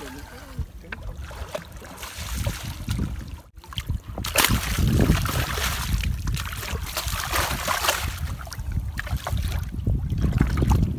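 A hooked fish thrashing and splashing in shallow water against the rocks as it is landed by hand, with wind buffeting the microphone. The sound cuts out briefly about three and a half seconds in, then the splashing and rumble grow louder.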